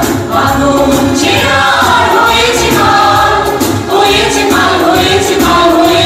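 A group of voices singing a song in chorus over instrumental music with a low pulsing beat, accompanying a stage dance.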